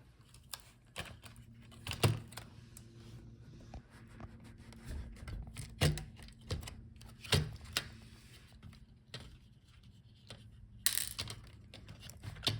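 Scattered sharp clicks and light knocks from a gaming laptop's heatsink and cooling fan assembly being handled and lifted out of the chassis, with a short scraping rustle late on.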